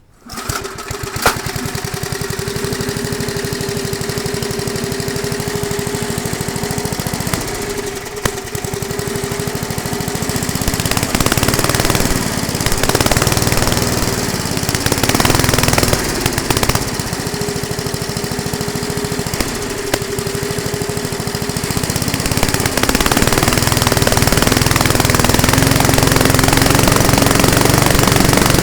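Murray lawn mower's small engine starting up and running steadily, its speed and loudness stepping up about eleven seconds in and again near the end.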